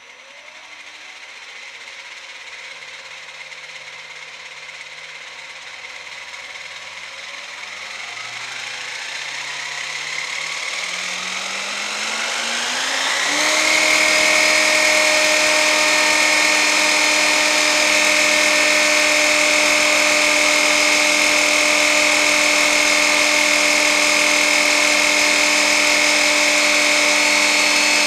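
3D-printed model turboshaft engine, driven by an electric motor, spinning up with its propeller. A whine rises steadily in pitch and loudness for about thirteen seconds, then holds at full speed as a loud, steady high whine over rushing air.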